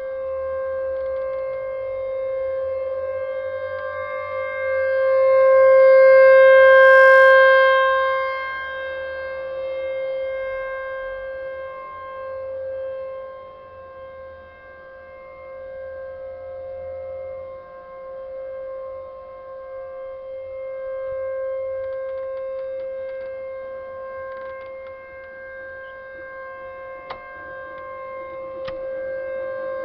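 Tempest outdoor warning siren sounding a steady, unwavering tone, the Alert signal of a siren test. Its loudness swells and fades as the rotating siren head sweeps toward and away, loudest about six to eight seconds in.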